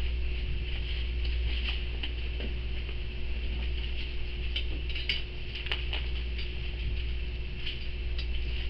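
Steady low electrical hum and hiss of the room's recording, with faint scattered rustles and small ticks of Bible pages being turned.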